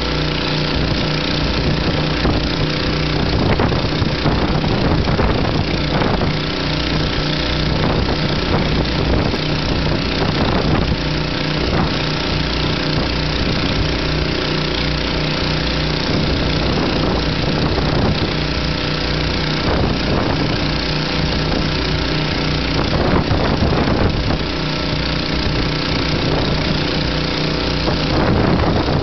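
Small engine-driven water pump running steadily at an even speed, over a constant rush of storm wind and surf.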